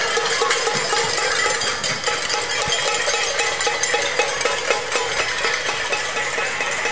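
A group of children shaking and striking handheld metal cups and tin cans with sticks as a percussion ensemble: a dense, continuous clatter of quick metallic hits over a steady held note.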